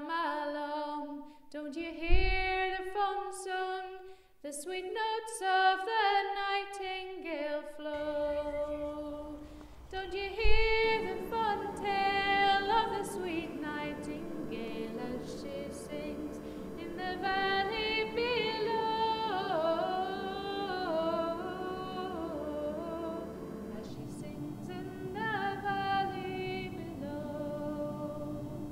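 Unaccompanied female singing, several voices overlapping from about eight seconds in. Two low thumps sound, about two and ten seconds in.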